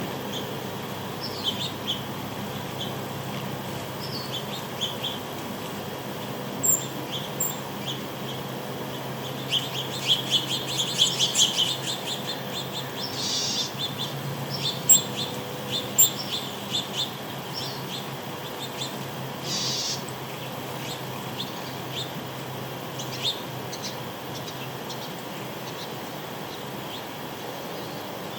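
Small birds chirping and tweeting in short, scattered calls, with a dense run of rapid chirps about ten to twelve seconds in, over a steady low hum.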